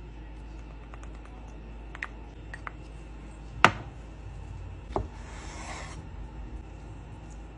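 Kitchen handling sounds: a wooden spoon stirring sauce in a small ceramic bowl, with a few light taps and one sharp clack about three and a half seconds in. A second knock about five seconds in is followed by about a second of scraping rasp.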